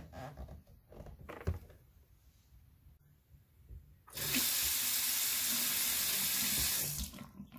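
Chrome single-lever bathroom faucet turned on about four seconds in. Water runs steadily into the sink basin for about three seconds, then is shut off. Before that there are faint handling sounds and one light knock.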